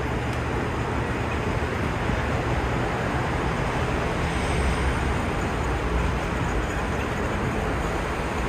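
A steady low engine drone under an even, broad rushing noise.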